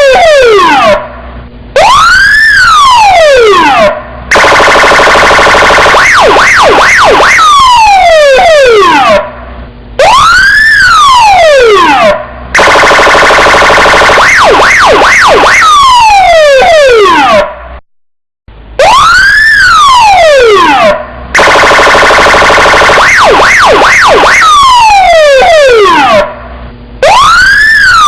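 Electronic police car siren cycling through its tones: a wail that rises quickly and falls slowly, a run of quick falling chirps, then a steady buzzing tone for several seconds. The whole sequence repeats about every eight to nine seconds, with brief breaks between parts.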